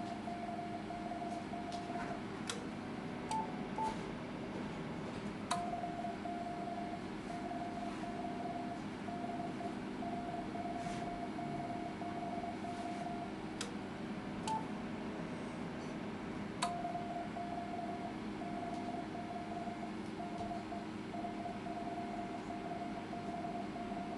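Transceiver CW sidetone: a steady mid-pitched tone keyed on and off in Morse dashes and dots while transmitting through the linear amplifier. A few sharp clicks and short higher beeps come in between, over a steady low hum.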